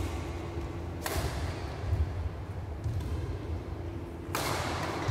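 Badminton rally: racket strings striking the shuttlecock about four times, a second or two apart, each crack echoing in the hall, the hit near the end the loudest. Dull thuds of footfalls on the court sit beneath.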